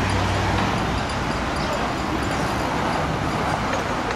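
City street traffic noise, a steady even rumble and hiss of passing vehicles. A low engine hum fades out about half a second in.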